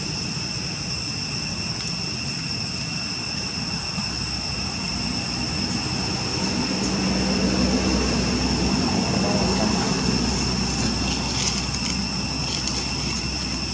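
A motor vehicle's engine passing, a low rumble that swells and fades over several seconds, over a steady high-pitched whine.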